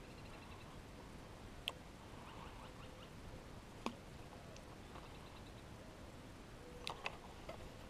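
Quiet outdoor background with a few sharp, separate clicks and faint high chirping now and then.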